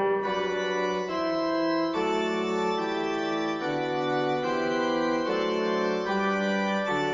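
Background music: an organ-like keyboard playing slow, held chords that change about once a second.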